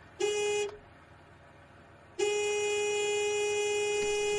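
Vehicle horn honking: a short honk, then a long held honk starting about two seconds in.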